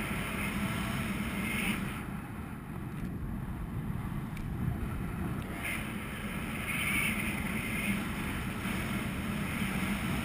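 Airflow of paraglider flight buffeting the microphone: a steady rushing wind noise that eases in its upper range for a few seconds about two seconds in, then fills back out.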